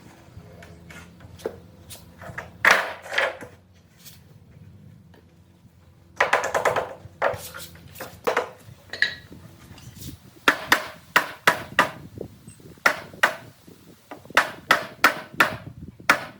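Hammering on wood: a couple of loud knocks, a dense cluster of blows partway through, then runs of sharp strikes at about three a second.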